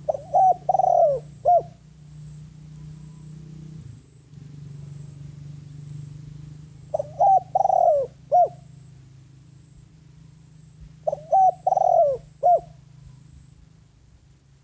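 Spotted dove cooing three times, each call a short phrase of a few notes, over a steady low hum.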